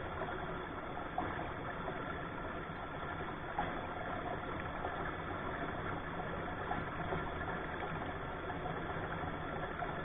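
Steady rushing of a shallow rocky stream as it flows around boulders.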